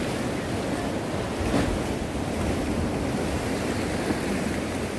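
Sea surf washing against a rocky shore in a steady wash of noise, with wind rumbling on the microphone.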